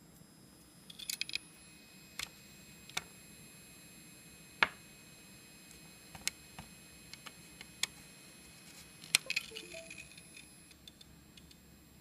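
Opened IBM hard drive clicking: irregular sharp clicks from the head actuator, singly and in short bursts, the loudest about four and a half seconds in and another just after nine seconds. A faint steady high whine runs underneath.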